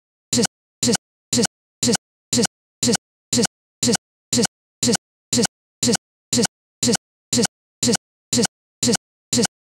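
A digital playback glitch: the same split-second fragment of sound repeats about twice a second, each burst cut off sharply into silence, like a stuck, stuttering loop.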